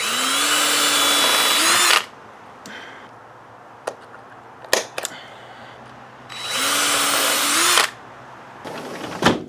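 Power drill run in two bursts of about two seconds and a second and a half, each spinning up to a steady speed and rising in pitch just before the trigger is let go, with a few sharp clicks in between.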